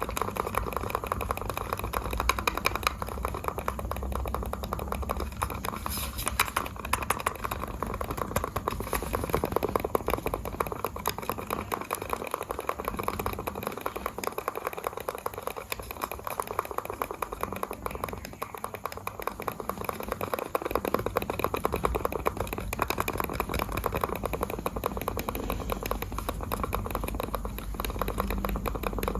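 Computer mouse buttons clicking in a fast, continuous stream of sharp clicks.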